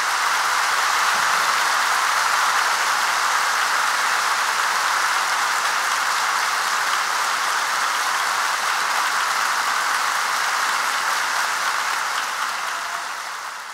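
Large concert crowd applauding: dense, steady clapping that fades out near the end.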